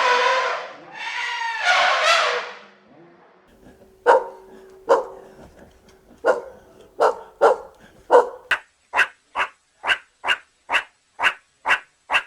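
A dog barking repeatedly in short, sharp barks, uneven at first and then settling into a steady rhythm of about two barks a second. The barking is preceded by two long calls from another animal.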